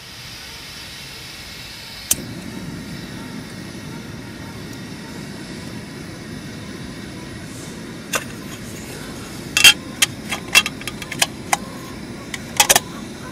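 Portable gas canister camping stove: gas hissing from the burner, a sharp click about two seconds in as it lights, then the steady low rush of the burning flame. A run of sharp clicks comes in the last few seconds.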